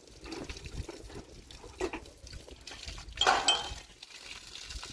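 Water splashing and dripping, with light clinks and a louder splash about three seconds in.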